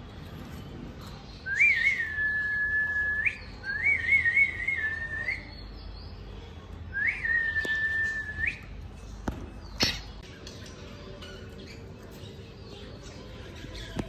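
Cockatiel whistling three long, steady notes, each opening with a quick upward slide, the middle one warbling. A single sharp click follows about ten seconds in.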